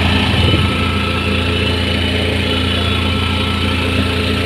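Small engine of an auto-rickshaw running steadily with a constant low hum, heard from the passenger seat.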